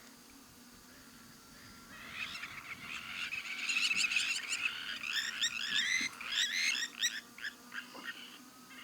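A chorus of frogs: many short, high chirping calls overlapping. It builds about two seconds in, is densest in the middle and thins to scattered calls near the end, over a faint steady low hum.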